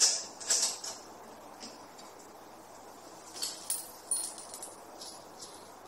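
Small metal parts of a lawn mower's handle fittings clicking and clinking together as they are handled and fitted: a quick cluster of sharp clinks at the start, then a few more, some briefly ringing, about three and a half to five seconds in.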